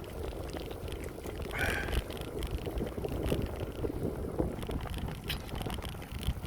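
Wind buffeting the microphone over the rumble of a bicycle rolling along, with one brief higher-pitched sound about two seconds in.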